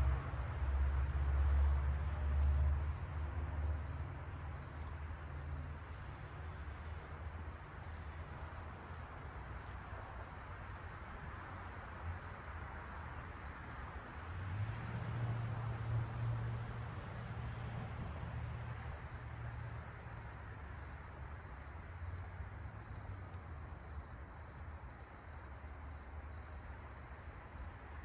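Steady chorus of chirping insects, a constant high-pitched trill, with a low rumble swelling in the first few seconds and again about halfway through.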